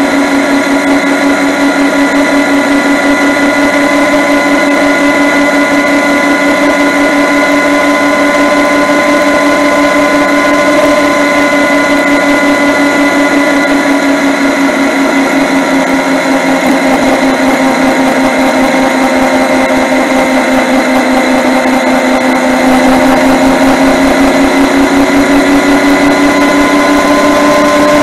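Yamaha MT-09's three-cylinder engine running at steady cruising revs while riding. Its pitch sags slightly midway and climbs again near the end as the throttle is opened.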